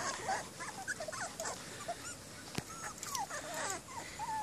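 A litter of four-week-old American pit bull terrier puppies whimpering and squeaking: many short, high cries overlapping one another.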